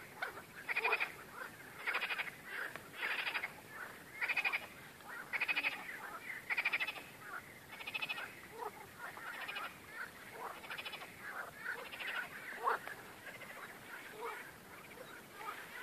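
A chorus of frogs: one frog gives a loud, rattling croak roughly once a second, and other frogs call more faintly around it.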